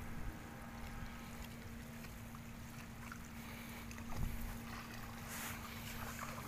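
Faint wind rumble on the microphone over light lapping of shallow water, with a faint steady hum underneath.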